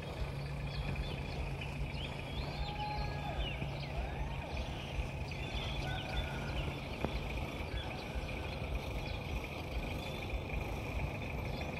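Outdoor ambience: scattered short bird chirps over a steady low rumble and a continuous high-pitched tone, with a low hum that fades out about halfway through.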